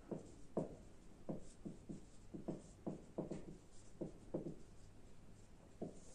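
Marker pen writing on a whiteboard: a faint run of short strokes and squeaks as letters are written, pausing for about a second near the end.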